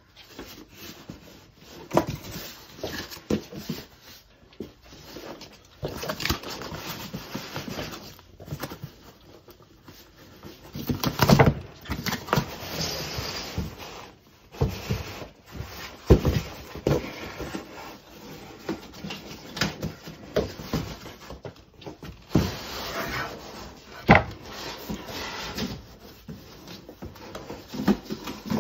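Cardboard boxes being handled on a wooden desk: an inner box sliding and scraping out of its outer shipping carton, with rubbing and scattered knocks and a few sharper thumps of cardboard against the tabletop.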